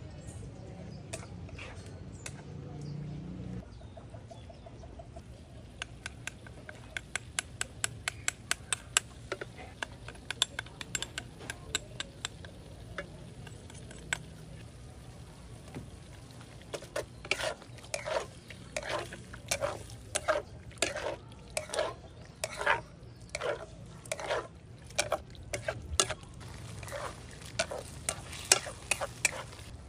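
Metal spatula working in a wok of chicken pieces: first a run of sharp clicks as it taps against the bowl and the wok while the seasonings go in, then from about halfway a steady series of scraping strokes, a little under two a second, as the chicken is stir-fried, with some sizzling underneath.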